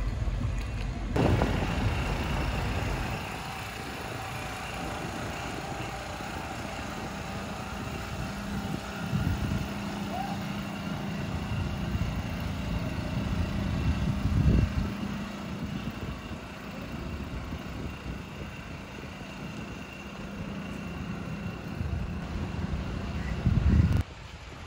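Outdoor traffic ambience: a steady wash of noise with a vehicle engine running steadily through most of it.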